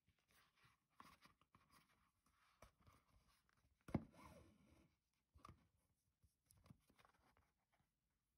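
Faint rustles and light scrapes of hand stitching: a needle and thread drawn through leather and the leather piece handled and flexed. One sharper knock about four seconds in.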